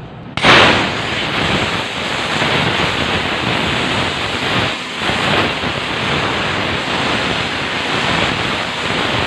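Compressed air hissing loudly as it is blown through the carburettor jets to clear the small holes. It starts abruptly about half a second in and goes on steadily with small surges.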